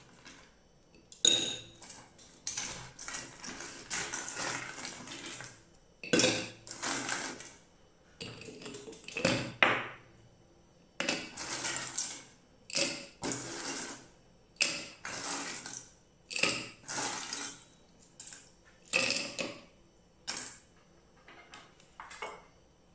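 Ice cubes clattering in a stainless steel pot as they are grabbed by hand, then clinking and ringing against the glass as they are dropped into a glass jar, handful after handful in repeated bursts every second or two.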